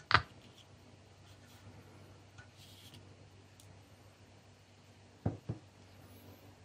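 Handling of a loose loudspeaker and an amplifier board. A sharp click comes just after the start, then a faint steady low hum, then two quick clicks about five seconds in as the speaker is taken away.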